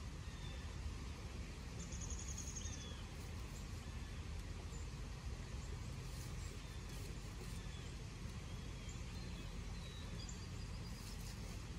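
Outdoor ambience: a steady low rumble with faint, scattered high bird chirps over it, and a short buzzy trill about two seconds in.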